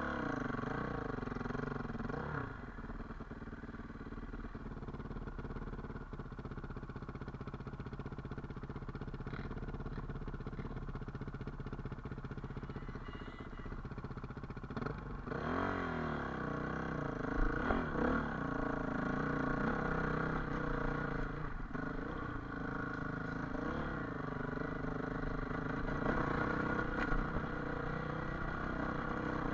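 Off-road dirt bike engine running under way. Its note rises and falls as the throttle is worked, settles to a steadier, lower run for a stretch in the first half, then revs up and down again from about halfway through.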